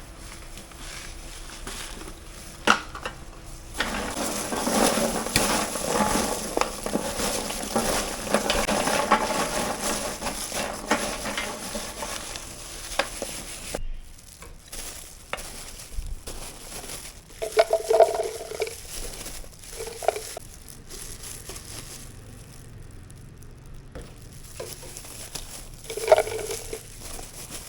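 Pork skin frying in hot oil, a dense sizzling crackle that starts about four seconds in and cuts off suddenly about halfway through. After that it is quieter, with a few clinks and knocks of utensils.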